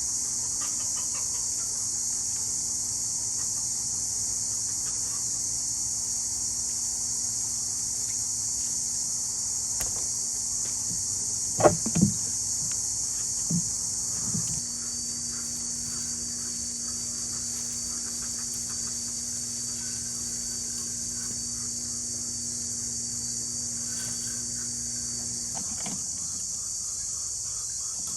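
Steady, high-pitched chorus of insects chirring without a break. A low steady hum runs underneath and stops about 25 seconds in. Two short, sharp, louder sounds come close together about 12 seconds in, with a couple of fainter ones just after.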